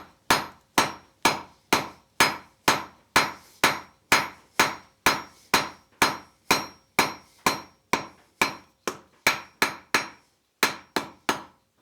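Blacksmith's hand hammer striking hot round bar on an anvil in a steady rhythm, about two ringing blows a second with a short pause near the end, drawing out a taper for the hook end.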